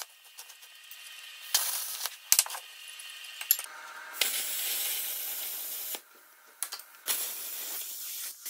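A CT520D plasma cutter hisses in three bursts as it cuts through a steel frame bracket; the middle burst is the longest. A few sharp clicks fall between the bursts.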